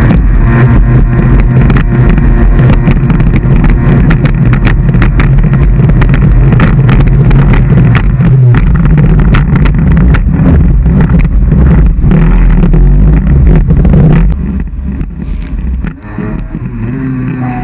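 Jet ski engine running hard at speed, very loud and close on the action-camera mic, broken by frequent short cracks. It turns quieter about 14 seconds in.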